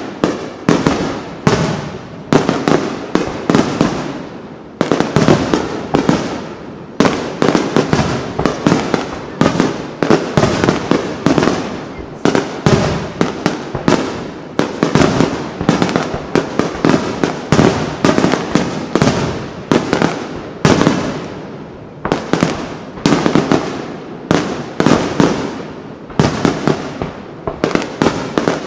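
Aerial firework shells bursting in a dense, continuous barrage: several loud bangs a second, overlapping and echoing.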